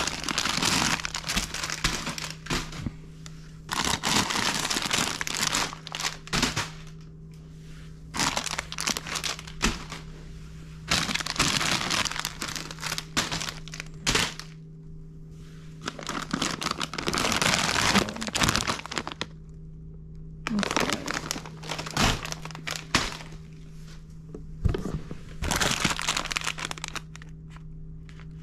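Plastic snack and chip bags crinkling in repeated bursts as they are rummaged through and handled in a cardboard box, with a steady low hum underneath.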